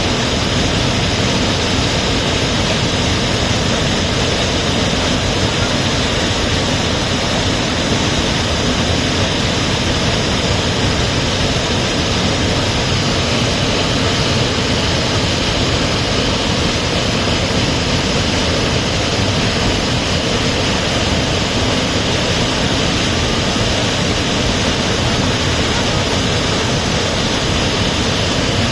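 Waterfall crashing into its pool: a loud, steady roar of falling water.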